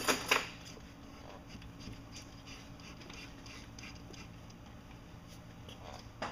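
MerCruiser Bravo shift cable's inner core being pushed by hand into its outer casing through the bell housing: a couple of sharp metallic clicks right at the start, then faint, irregular light ticks and scraping as the core slides in.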